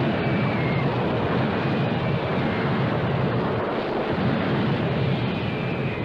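Battle sound effects on an old film soundtrack: a dense, steady roar, with a faint high whine sliding downward near the start and again near the end.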